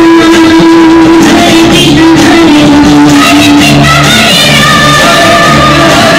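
Loud runway music with long held notes and singing.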